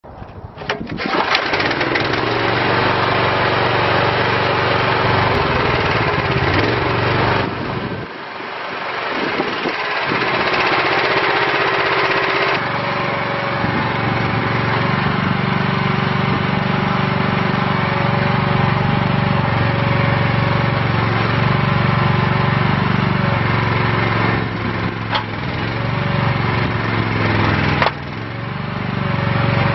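Small Honda GX gasoline engine on a Burro truck-mount forklift starting up and running steadily. It dips briefly about eight seconds in, then runs on with a deeper, heavier note, with a couple of short dips near the end.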